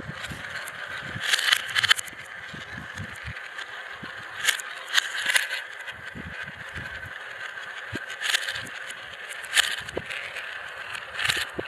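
Marbles rolling and rattling through the funnels of a marble run: a steady rolling whirr, with louder clattering drops every one to three seconds.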